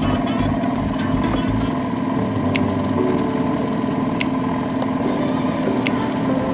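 STIHL MS 181 two-stroke chainsaw engine idling steadily, with a faint high tick about every second and a half.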